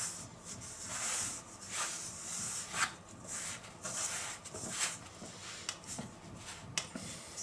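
A fork mixing sticky pizza dough in a stainless steel bowl: a string of irregular scraping strokes, about one or two a second.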